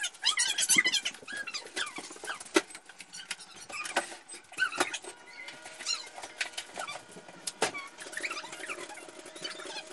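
Plastic grocery bags and snack packages being handled on a countertop: crinkling and light clicks and knocks, with high squeaky sounds near the start. A faint steady hum comes in near the end.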